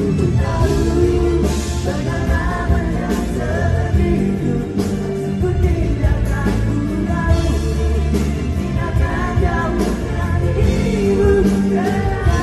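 A male singer singing live into a microphone over a full band playing, in a Malay rock song performed on stage.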